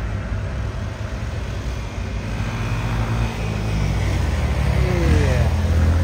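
Heavy truck's diesel engine running, a low rumble that grows louder from about halfway through as it comes closer.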